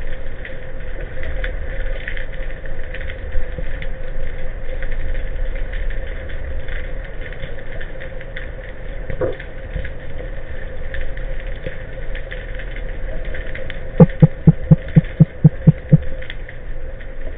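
Underwater sound through a diver's camera: a steady low rumble with a faint hum and scattered crackling ticks. About fourteen seconds in comes a quick run of about nine low knocks over two seconds, the loudest thing heard.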